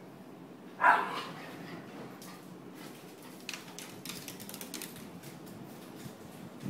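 A small dog barks once about a second in, the loudest sound here. Later come quick light clicks, its claws on a wooden floor as it runs.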